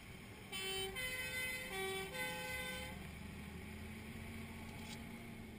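Fire engine's two-tone siren, alternating low and high notes twice, then stopping about three seconds in; the engine's steady hum carries on underneath.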